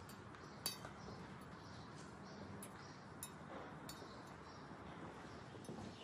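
Faint light clicks and clinks, about half a dozen scattered at uneven intervals, the sharpest about two-thirds of a second in, over a low steady hum that fades about halfway through.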